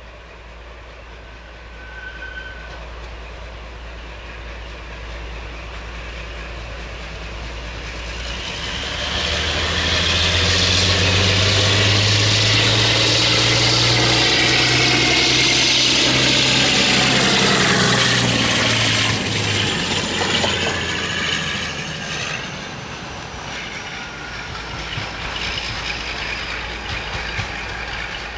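Class 52 'Western' diesel-hydraulic locomotive, its twin Maybach V12 engines under power, approaching, passing close and drawing away. The engine note and a high whine build to their loudest over the middle, drop in pitch as it goes by, then fade.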